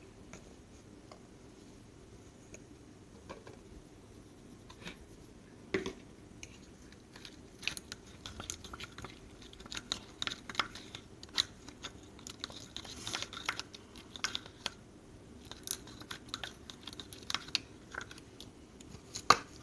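Glue slime being stirred and worked in a plastic cup with a flat stick: irregular sticky squelches and small clicks of the stick against the cup, sparse at first and busier from about a third of the way in.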